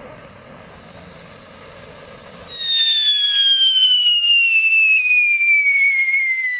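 Black Cat Moonshine ground firework hissing as it sprays sparks. About two and a half seconds in, a loud whistle starts as it jets sparks sideways, and it slowly falls in pitch.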